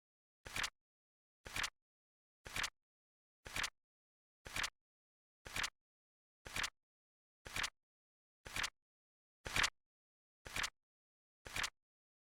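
Flip-clock ticking sound effect: a short, sharp flap-and-snap click once every second, about twelve in a row, evenly spaced with silence between.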